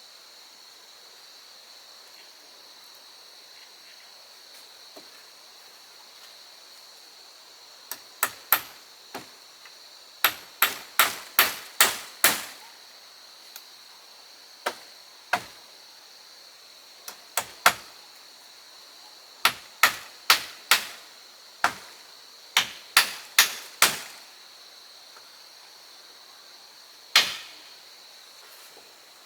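Hammering on wood: quick runs of sharp strikes, about two a second, starting about a third of the way in, with a single last blow near the end. Insects chirr steadily in the background.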